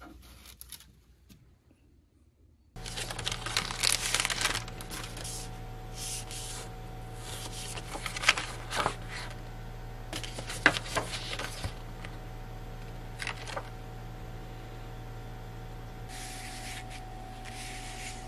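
Paper being handled: a mailed envelope and its folded leaflets rustling and crinkling in short irregular bursts, with a few sharper snaps of paper. The sound starts about three seconds in, over a faint steady hum.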